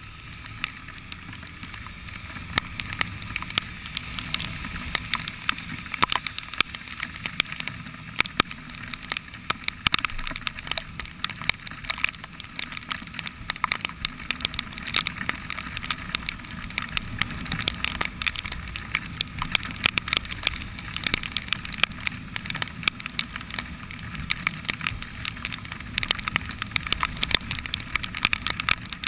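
Motorcycle riding on a rain-soaked road: a steady engine rumble and the hiss of tyres on wet asphalt, with frequent sharp ticks of raindrops hitting the camera.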